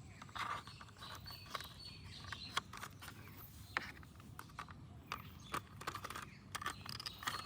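Scattered light clicks and taps of plastic toy vehicle parts being handled and fitted together, with a few sharper clicks.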